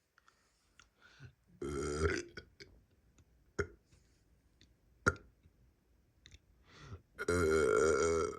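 A person burping twice: a short burp about two seconds in and a longer, louder one of about a second near the end. A couple of sharp clicks come between them.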